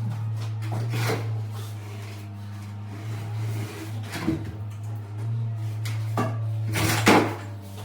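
A few separate knocks and scrapes, the loudest about seven seconds in, over a steady low hum.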